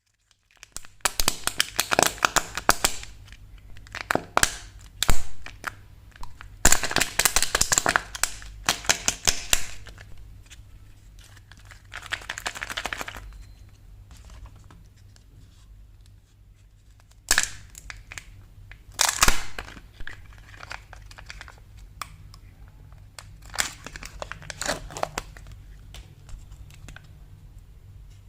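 Candy wrappers being torn open and crinkled by hand, in several bursts of crackling and tearing separated by quieter pauses.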